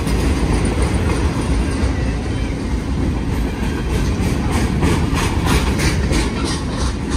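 Freight train boxcars rolling past at close range: a steady rumble of steel wheels on the rails, with a run of quick, regular wheel clacks from about four seconds in.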